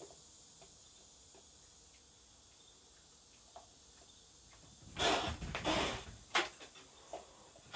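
Crickets chirping steadily. About five seconds in, a sudden loud rough burst of noise lasting about a second as the black cat comes up against the raccoon over the food, followed by a sharp knock and a few small clicks.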